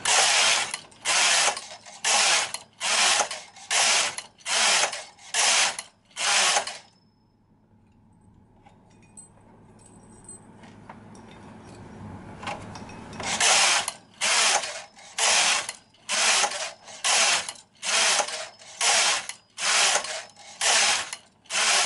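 Silver Reed SK160 mid-gauge knitting machine carriage being pushed back and forth across the needle bed, a rasping slide with each pass knitting one row, about one pass every 0.7 s. It runs in two spells with a pause of about six seconds in the middle, knitting the twenty rows of a gauge swatch.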